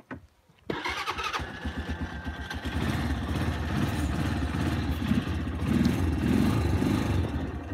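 Quad bike engine cutting in suddenly less than a second in and running with a low, rapid pulse, getting a little louder after a couple of seconds.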